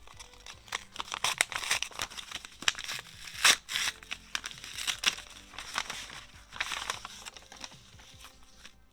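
Mail packaging of paper and plastic being crinkled and torn open in quick, crackly bursts, loudest about halfway through, dying away near the end. Soft background music plays underneath.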